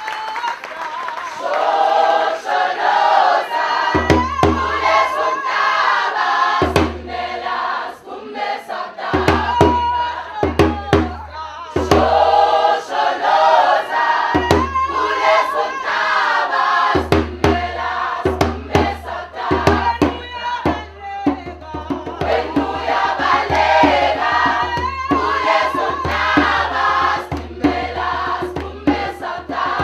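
A choir singing together, with a hand drum beating under the voices. The drum comes in about four seconds in, plays in short spells, then keeps a steady beat through the second half.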